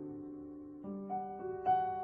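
Slow, soft piano music: a held chord fading, then single notes struck one after another in the second half.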